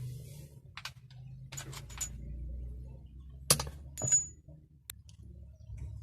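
Metal hand tools clinking and tapping against engine parts: a few sharp clicks, the loudest about three and a half seconds in, followed by a brief metallic ring.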